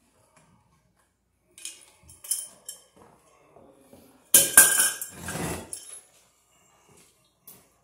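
Metal clinking and clattering as a steel electrical junction box is taken down from the ceiling and handled: scattered light clinks, then the loudest rattling clatter with a ringing metal tone about four and a half seconds in.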